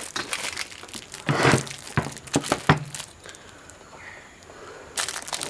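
Scattered light clicks, taps and rustling from handling a multimeter's probe leads and the wires of an LED floodlight's driver unit, with a cluster of clicks about a second and a half in and another knock near the end.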